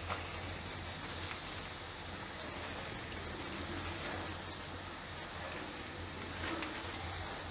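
Spiced potato slices frying in oil in a wok, a steady faint sizzle, with shredded cabbage dropped on top near the start.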